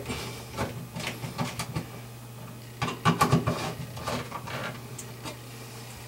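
Hand screwdriver driving the screws of a smoke detector's mounting bracket into a ceiling electrical box: irregular small clicks, scrapes and rattles of metal and plastic, busiest about three seconds in.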